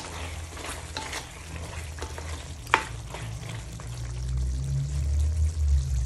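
Pork belly chunks sizzling as they cook down in liquid in a metal wok, stirred with a spatula that scrapes and clinks against the pan, with one sharper clank just under three seconds in. A low rumble swells over the last two seconds.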